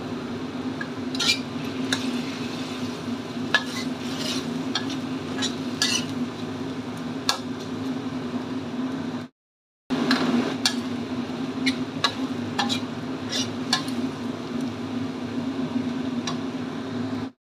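A metal spatula stirs and scrapes tomato sambal around a steel wok, with frequent sharp clicks of metal on the pan over the sizzle of the simmering sauce. A steady low hum runs underneath. The sound cuts to silence for a moment about nine seconds in.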